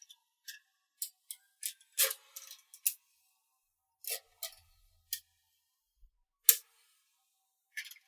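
Small magnetic balls clicking into place as a strand of them is pressed along the edge of a model built from the balls: a dozen or so sharp, irregular clicks, the loudest about six and a half seconds in.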